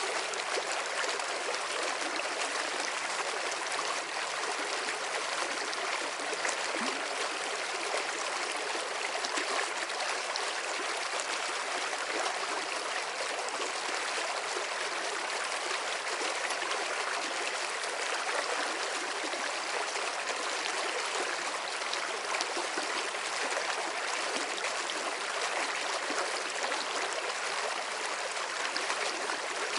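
Water of a stream running steadily over stones, an even trickling and splashing with no break.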